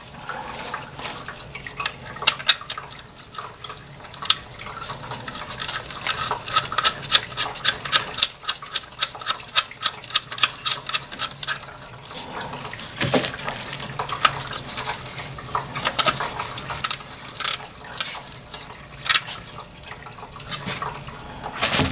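Irregular small metallic clicks and clinks of hand tools and parts while a replacement purge valve is being fitted and bolted in, with denser runs of clicks in the middle and near the end.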